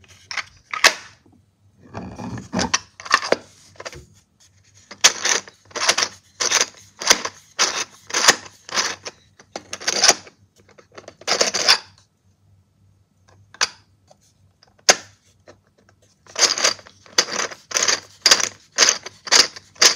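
Hard 3D-printed plastic engine parts clicking and clacking as they are handled and fitted together. Two runs of quick, irregular clacks, about two a second, with a few scattered clicks between them.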